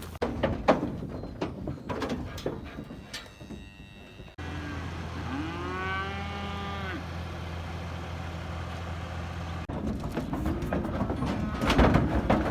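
Cattle mooing: one long call about five seconds in that rises and then holds, over a steady low hum, with scattered knocks and clatter before and after.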